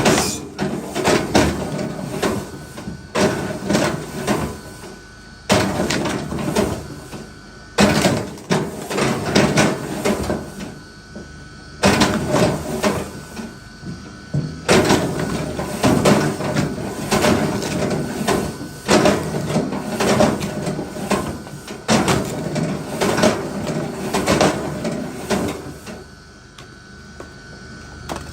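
Scraping, rasping strokes on wood, coming in runs of a couple of seconds that each start sharply, about ten runs with short pauses between.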